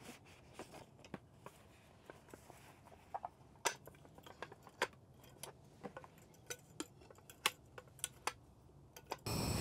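Scattered light clinks and clacks of a metal Snow Peak Tramezzino sandwich maker being taken out of its cloth bag and its hinged halves opened and handled. Just before the end a louder steady noise cuts in abruptly.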